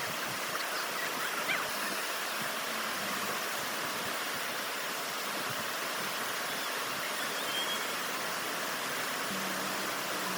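Steady rush of a waterfall, an even hiss of falling water that holds at one level throughout.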